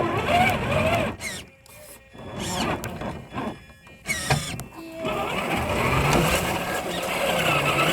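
Electric motor and gears of a radio-controlled Traxxas Hauler truck whining in short stop-start bursts that rise and fall in pitch, then running steadily from about five seconds in.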